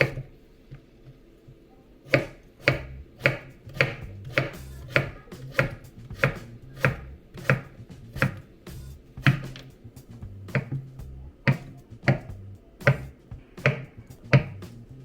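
Background music with a light snapping beat, about two clicks a second, over a plucked bass line.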